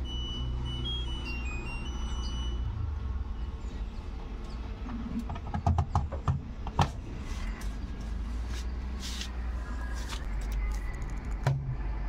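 LG front-load washing machine at the end of its cycle: the last few high beeps of its finishing tune in the first two seconds or so, then a cluster of sharp clicks and knocks about six seconds in as the door is unlatched and pulled open, over a steady low rumble.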